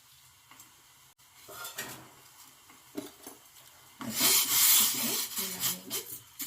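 A spoon scraping and clinking against metal kitchenware as turmeric and salt are spooned into a pot of water. Scattered clicks and short scrapes lead up to a louder stretch of scraping about four seconds in.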